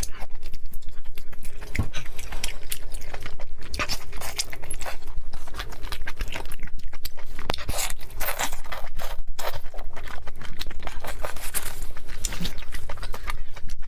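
Close-up chewing of cooked octopus: a steady run of quick, moist mouth clicks and smacks, several a second.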